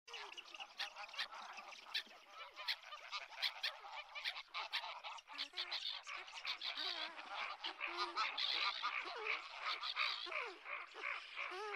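A flock of light-bellied Brent geese calling, a dense chatter of many short overlapping calls.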